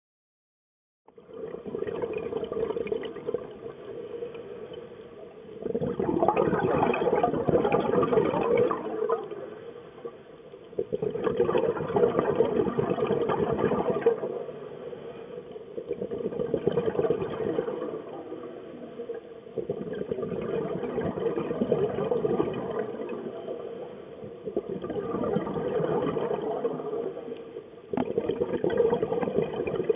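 Scuba diver breathing through a regulator underwater: exhaled air bubbling out in surges every four to five seconds, with quieter stretches between breaths, picked up through the camera housing. It starts about a second in.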